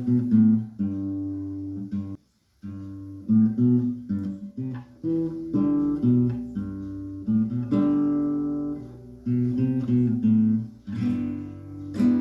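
Acoustic guitar strummed in chords, the chords changing every second or so, with a brief break about two seconds in.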